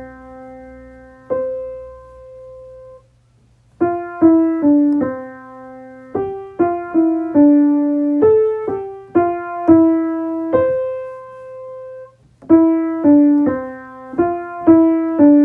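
Background music: a slow melody of single piano-like keyboard notes, each struck and fading, in short phrases with brief breaks about three seconds in and again near the end.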